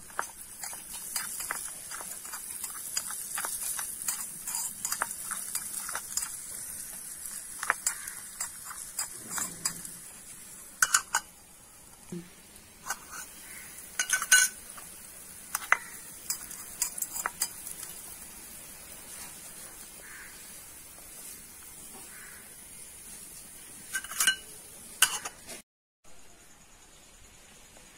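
A small metal spoon stirring and scraping chopped vegetables in a miniature aluminium pot over a tiny wood fire, with a steady hiss of cooking underneath. A few sharper clinks come from the spoon striking the pot.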